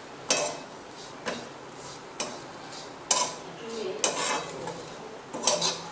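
Steel spatula stirring and scraping grated coconut, semolina and nuts around a steel kadhai as the filling roasts, about one stroke a second.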